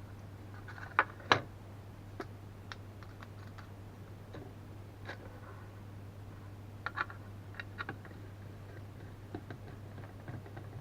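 Scattered light clicks and taps of small tools and parts being handled at a workbench, the two loudest about a second in, over a steady low hum.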